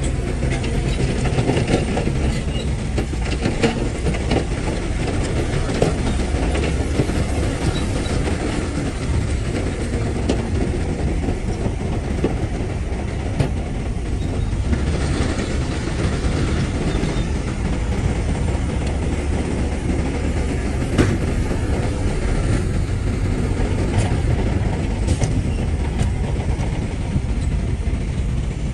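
Heavy earthmoving machinery working: a steady diesel engine drone with scattered metallic clanks and knocks, one louder clank about two-thirds of the way through.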